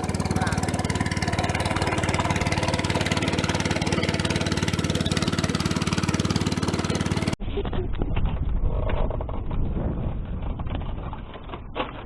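A motor running steadily, which cuts off abruptly about seven seconds in. After that there is low rumbling noise with a few sharp clicks near the end.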